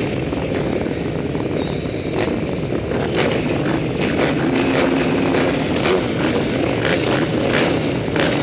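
A pack of motocross bikes running together at the starting gate, their engines idling with many short, sharp revs over the top.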